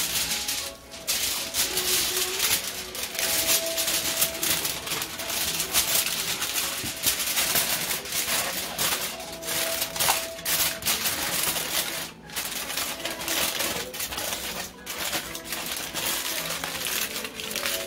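Aluminium foil being crumpled and folded by hand around a leaf-wrapped parcel, crinkling and crackling almost without a break, with short pauses about a second in and around twelve seconds.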